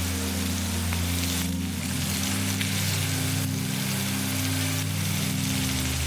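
Background music over a steady hiss that sounds like sizzling or rain.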